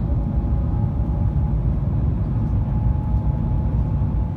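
Cabin noise inside the Shanghai Maglev train as it runs: a steady, loud low rumble with a faint high steady whine above it.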